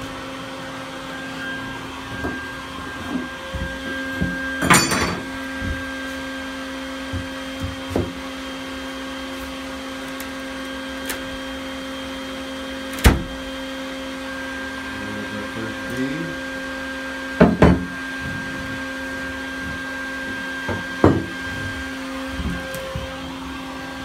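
A bee vacuum runs with a steady motor hum. Over it come several sharp knocks and clanks of tools against a plywood floor panel as it is worked loose and pried open, including a ringing clank about a fifth of the way in and a quick double knock about two-thirds through.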